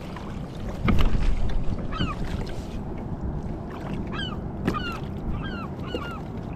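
A California gull, hooked and held in hand, squawking repeatedly in short arched calls from about two seconds in, over steady wind and water noise. A thump about a second in.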